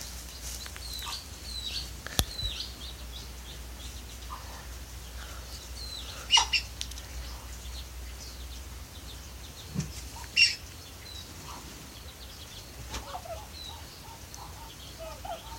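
Many short, high bird chirps scattered throughout, with a sharp click about two seconds in and two louder short calls or knocks around six and ten seconds.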